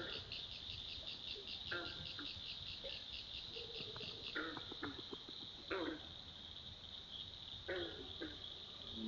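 Night insects chirping in a high, steady trill that pulses about four to five times a second before blurring into a continuous buzz. Over it come four or five short, whiny calls, the soft vocalizations beavers make to each other at the den.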